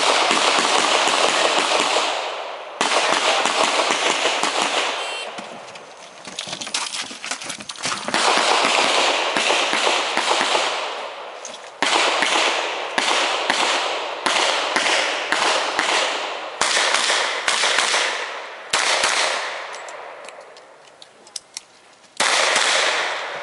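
Smith & Wesson 610 revolver fired through a timed stage. Single shots and pairs come first, then a fast string of shots about two a second, then a few last shots. Each shot is followed by a long ringing echo.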